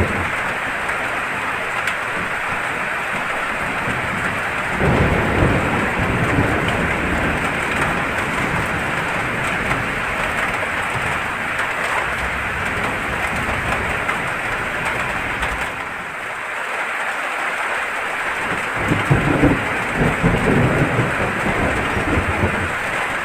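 Steady heavy rain hissing, with thunder rumbling low twice: about five seconds in and again near the end.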